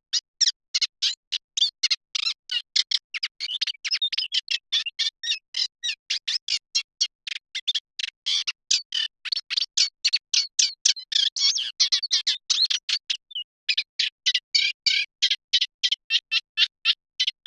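Eurasian reed warbler singing: a rapid, unbroken run of short chattering notes, about four or five a second, with one short break a little past the middle.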